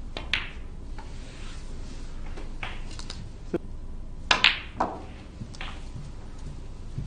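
Snooker balls clicking: the cue tip striking the cue ball and the cue ball hitting object balls as a red and then the black are potted. The loudest is a sharp double click about four seconds in.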